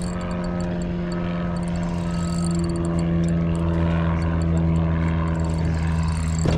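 A small boat motor running steadily with a low hum, growing slightly louder through the middle. A short click sounds near the end.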